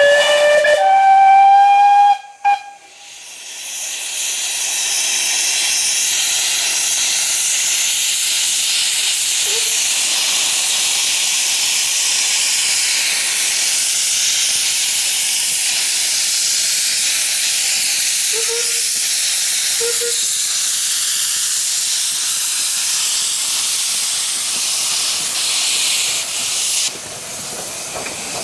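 A 15-inch gauge steam locomotive's whistle sounds for about two seconds, stepping up in pitch partway, then cuts off. A steady, loud hiss of escaping steam follows and runs for over twenty seconds before stopping suddenly near the end.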